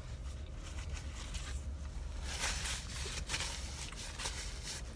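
Soft rustling and handling noises inside a car cabin, a few light strokes from about two seconds in, over a steady low rumble.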